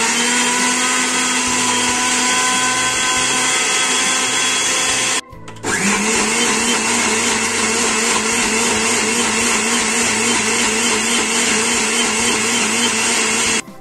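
Countertop blender running at full speed, grinding shallots, garlic, onion, candlenuts and dried shrimp with water into a smooth paste. It stops briefly about five seconds in, then starts again with a short rising whine and runs on until just before the end.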